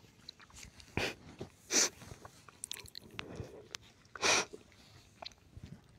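A man sniffing as he cries: three short, sharp sniffs about one, two and four seconds in, with soft breathing and faint clicks between.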